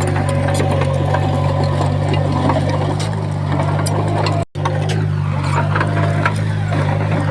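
Bulldozer diesel engine running steadily under load, with scattered metallic clanks and rattles. The sound cuts out for an instant a little past halfway.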